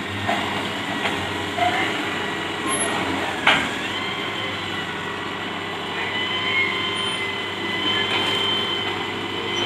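Old Hitachi UH07 hydraulic excavator's diesel engine running steadily as the arm works, with a steady high whine over the engine note. A single sharp knock comes about three and a half seconds in.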